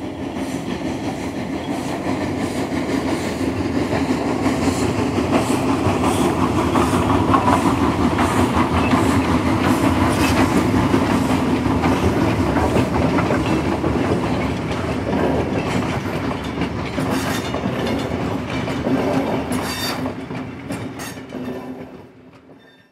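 A train running on rails with clickety-clack, growing louder toward the middle and fading out near the end.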